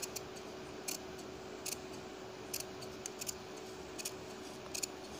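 Scissors snipping through layered fabric and fusing paper, trimming the margin around a stitched neckline, with a sharp snip about once a second over a faint steady hum.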